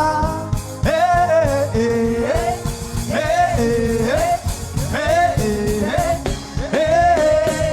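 Worship music: a melody of short phrases that swoop up and down and repeat about every second or two, over a steady low accompaniment.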